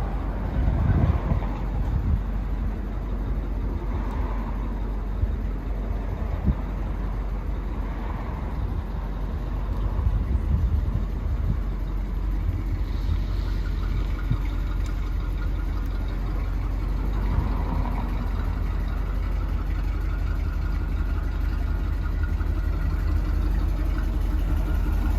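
A 1964 Ford Country Squire's engine running steadily with a low rumble.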